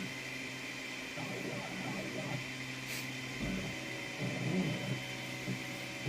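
Anet A8 3D printer running mid-print, its stepper motors giving a steady hum and whine with a few uneven changes as the head moves.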